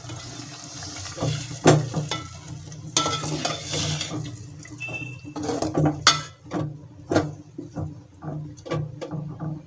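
A spatula stirring and scraping a masala of onion, tomato and ground spices frying in oil in a pan, with irregular clicks of the spatula against the pan over a sizzle.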